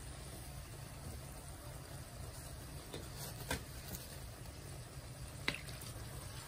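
Dough cakes deep-frying in a wok of hot oil: a quiet steady sizzle over a low rumble, with two sharp taps of the wooden slotted spatula against the wok, about three and a half and five and a half seconds in.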